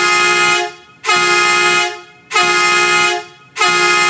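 Vehicle horn honking in evenly spaced blasts, each just under a second long, about one every 1.2 seconds.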